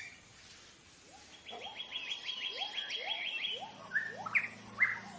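Forest birds calling: a fast run of short, high chirps, several lower rising whistled notes about twice a second, then two louder chirps near the end. Soft background music comes in partway through.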